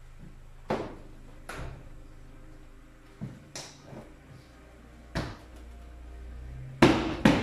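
Irregular sharp knocks and clacks from tools and parts being handled in a car's engine bay, with the loudest cluster near the end.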